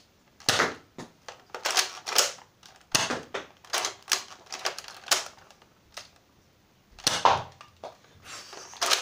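Toy dart blaster firing over and over: about a dozen sharp clacks at uneven intervals, with a pause of about a second before the last few shots.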